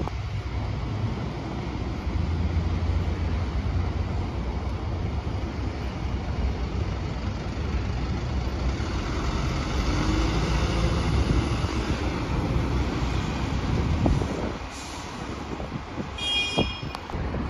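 Engine running and tyre noise from a Mercedes-Benz Sprinter-based minibus pulling away and driving past, over a steady traffic rumble. Near the end there is a brief high-pitched tone lasting under a second.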